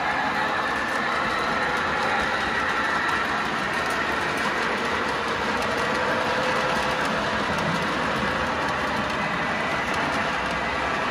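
Steady rolling rumble and rattle of an O gauge toy train running on its track, as a string of Menards Tide tank cars rolls by on die-cast metal wheels.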